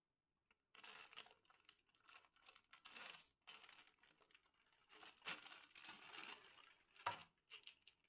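Plastic snack packet crinkling and crackling as it is handled, starting about a second in, with a few sharper, louder crackles later on.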